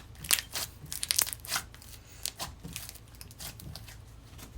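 Slime being squished and stretched by hand, making a run of quick, irregular pops and crackles. They come thick in the first two seconds and thin out after.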